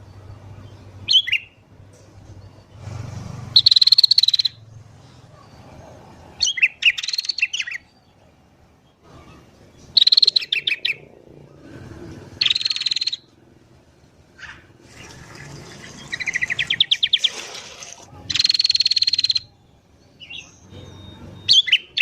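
Sooty-headed bulbuls calling: short, high, chattering phrases repeated about every two seconds, some with rapid trilled notes.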